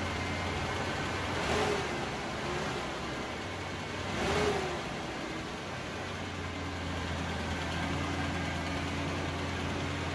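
2001 Mazda B3000's 3.0 L V6 idling steadily, revved briefly twice with the throttle, a little after one second in and again around four seconds in, each rev rising and falling quickly. The engine has just been resealed with new gaskets and seals after water mixing into its oil.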